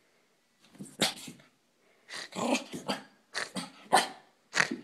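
A miniature pinscher's short play growls and barks in about six bursts, each under a second, with brief pauses between. They come from excited play, not aggression: she is in a play bow.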